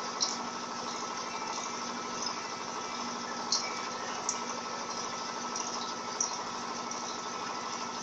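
Electrolux Turbo Economia 15 kg (LTD15) top-load washing machine in its spin cycle: steady hum of the motor and the fast-spinning basket, with a few brief clicks.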